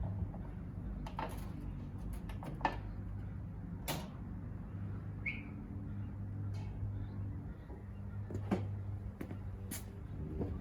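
Scattered light clicks and knocks of metal parts being handled, with a brief squeak about five seconds in, over a steady low hum.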